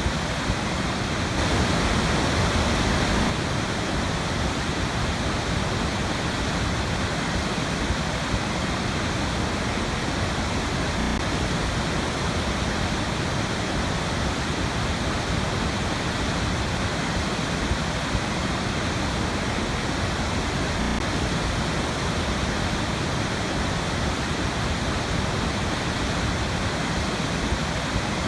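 Waterfall pouring into a river: a steady, even noise of falling water, a little louder for a second or two near the start.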